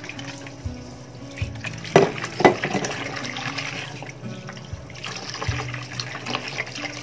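Water sloshing and splashing as raw chicken pieces are rinsed by hand in a plastic basin of water, with two loud splashes about two seconds in. Soft background music runs underneath.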